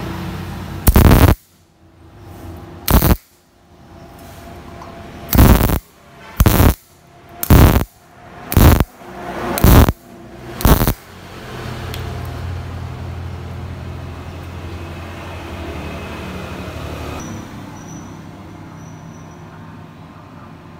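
MIG welding arc crackling in eight short bursts, a fraction of a second each, as a row of tack-stitch welds is laid on thin-walled square steel tube with the machine set to low voltage and a wire feed set higher than the voltage for thin stock. After the last burst a steadier, lower hum runs on.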